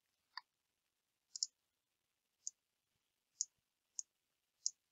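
Faint computer mouse clicks, about six of them spread a second or so apart, one a quick double click.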